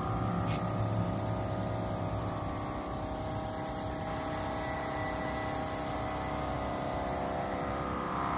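Battery-powered cordless air compressor running steadily with a whine. It supplies air to a DPF cleaning gun that is pushing cleaning fluid into a diesel particulate filter.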